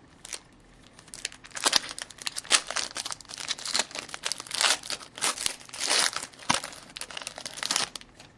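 Wrapper of an SP Authentic hockey card pack being torn open and crinkled: a dense run of crackles and rustles from about a second in until near the end.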